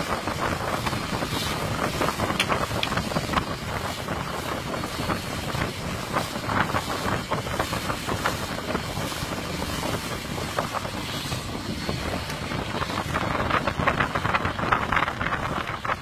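Wind buffeting the microphone over the steady rush of water and motor noise from a motorboat under way at speed.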